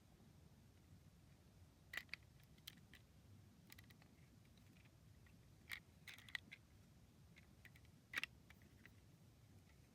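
Faint, scattered clicks and taps of Lego plastic pieces being handled, about eight short clicks spread irregularly, a few in quick pairs.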